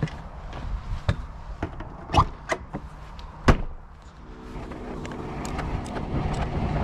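Several sharp knocks and clicks, then from about four seconds in a steady hum with several pitches that slowly grows louder.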